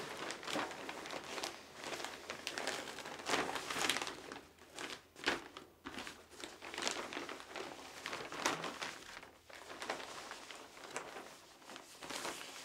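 Paper kite being handled and turned over: irregular crinkling and rustling of its paper sail against the wooden frame sticks as it is inspected for mending.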